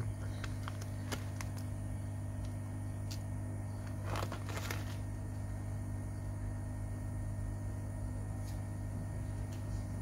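A few faint clicks and a brief crinkle as a plastic parts bag and a small clear plastic case are handled, over a steady low hum.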